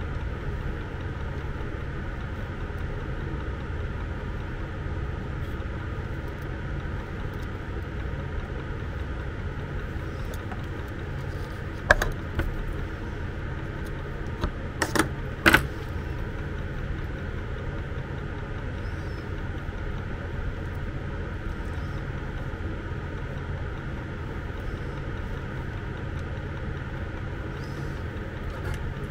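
Steady low machine hum throughout, with a few sharp clicks and clinks about halfway through as small parts and wire are handled on the bench.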